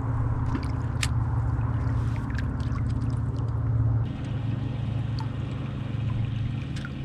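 Boat motor running steadily, its hum dropping a little about four seconds in, with water gurgling and dripping around the boat.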